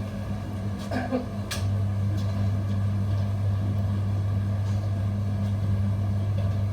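A motor running with a steady low hum, which gets louder about one and a half seconds in, just after a sharp click.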